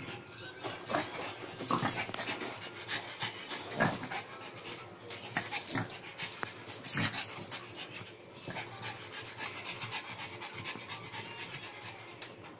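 Pug puppy breathing hard in short, uneven puffs, worked up from chasing a laser pointer dot.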